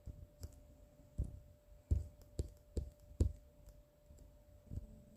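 Faint, irregular soft knocks and taps, about eight of them spaced unevenly, over a faint steady hum.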